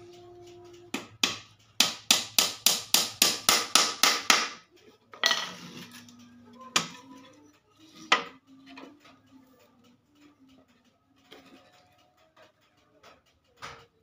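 Small hammer tapping nails into a wooden bird-cage frame: two taps, then a quick run of about a dozen taps at roughly four a second, and a couple of single taps later.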